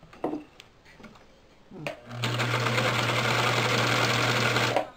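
Elgin Decora electric sewing machine sewing a seam: after a couple of brief handling sounds, the motor starts about two seconds in and runs at a steady speed with a constant hum for about two and a half seconds, then stops abruptly. It is running freely and no longer stiff, now that thread caught in the shuttle has been removed.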